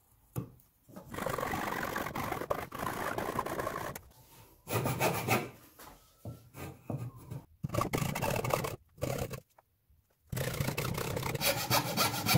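Hand coping saw cutting through a wooden board clamped in a vise, in several runs of quick back-and-forth strokes broken by short pauses.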